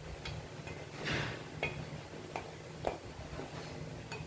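Slotted spatula scraping and knocking against a stainless steel pan and a ceramic bowl as stir-fried vegetables are pushed out: a few irregular clicks, with one longer scrape about a second in.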